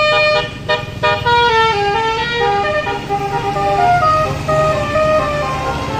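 A bus's basuri telolet horn, a multi-note melodic air horn, plays over the low rumble of the bus engine. It holds a chord that stops about half a second in, then plays a tune note by note that steps down and back up.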